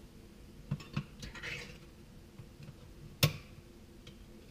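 Quiet handling of a can of condensed milk over a saucepan: a few faint clicks and a short scrape, then one sharp click about three seconds in.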